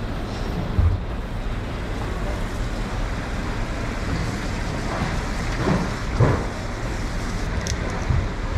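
Steady low background rumble, with a soft knock about a second in and another about six seconds in.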